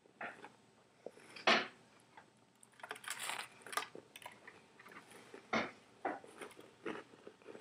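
Chewing a mouthful of saltine crackers spread with peanut butter: faint, irregular mouth noises with a few louder bursts, the loudest about a second and a half in.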